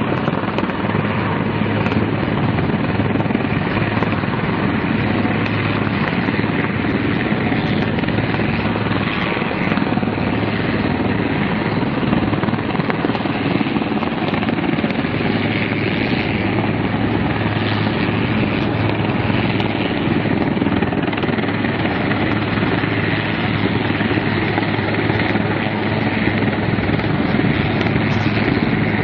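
Attack helicopter hovering, its rotor and engines making a steady, unbroken noise.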